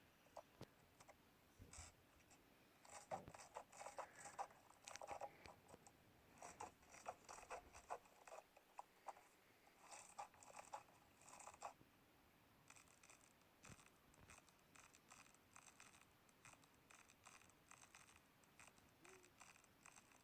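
Slime being squeezed and poked, giving irregular runs of small clicks and crackles with short pauses between them.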